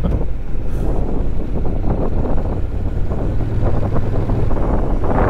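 Motorcycle running steadily along the road, its engine a low continuous hum under a rush of wind and road noise.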